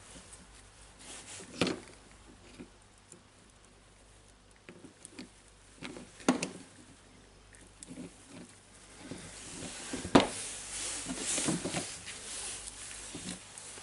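Gloved hands handling small parts and tools on a wooden bench: scattered light clicks and taps with glove rustling. There are sharper knocks about six and ten seconds in, and a stretch of hissy rustling near the end.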